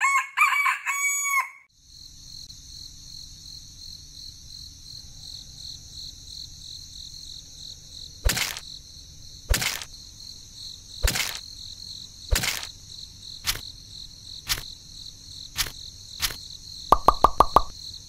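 A rooster crows once at the start. A steady high-pitched buzz, like an insect chorus, then runs underneath, with about eight sharp knocks about a second apart and a quick run of small clicks near the end.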